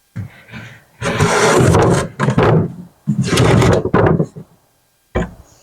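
Rough scraping and sliding on wood in several bursts, the two longest about a second each, then one sharp knock near the end.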